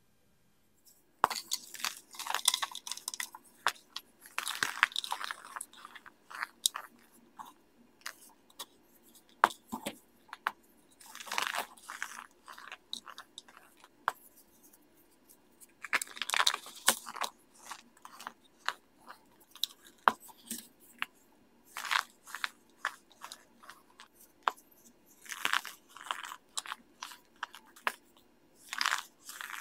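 Compressed baking soda pucks crushed and crumbled by hand: crisp crunching and crackling in repeated bursts with short pauses and single clicks between, starting about a second in.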